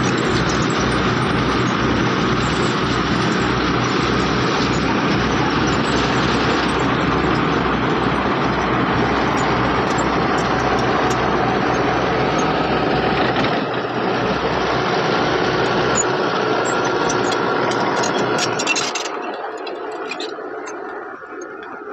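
Heavy diesel earthmoving machine's engine running hard, with a low throb that fades, then the sound falls away sharply near the end.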